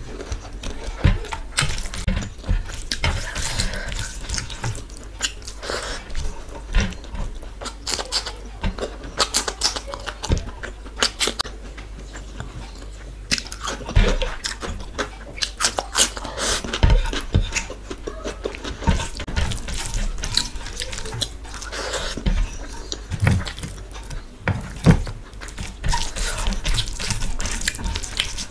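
Close-up wet eating sounds: fingers squishing and mixing rice with dal and curry on a plate, and mouth chewing and smacking, as many irregular wet clicks.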